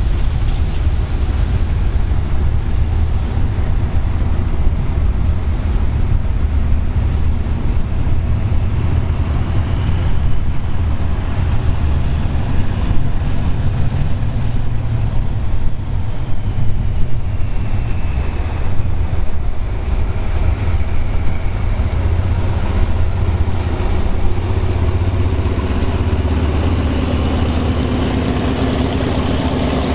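Hitachi diesel-electric locomotive's engine running with a deep, steady rumble as it rolls slowly past. Near the end a low engine note rises.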